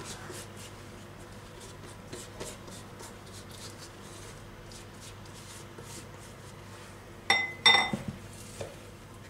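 Metal spoon dabbing and spreading an oil mixture over a thin yufka pastry sheet, with soft tapping and rustling. About seven seconds in the spoon clinks twice against a glass bowl with a brief ring, then once more faintly.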